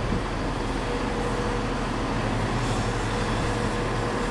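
A CrossCountry Class 170 Turbostar diesel multiple unit running slowly into the platform. Its diesel engines drone steadily under a constant rumble of the train.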